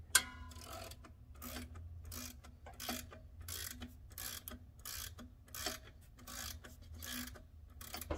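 Ratchet wrench clicking in repeated short strokes, about two to three a second, as it backs out the serpentine-belt tensioner pulley bolt. One sharp click stands out just after the start.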